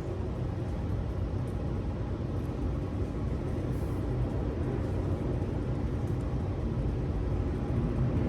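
Airplane passing overhead, heard as a steady low rumble that slowly grows louder.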